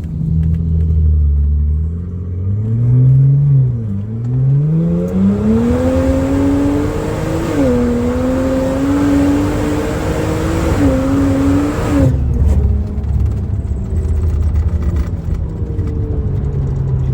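BMW N54 twin-turbo straight-six accelerating hard through the gears, its pitch climbing and dropping back at each upshift, then the throttle closing about twelve seconds in. The engine pulls strongly despite a misfire that the owners suspect comes from a scored cylinder.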